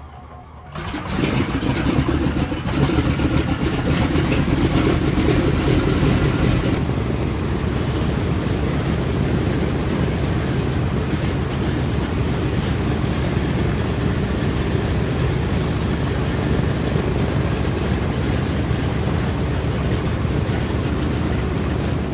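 Aircraft engine noise rising in about a second in and running loud and steady, its high hiss dropping away about seven seconds in.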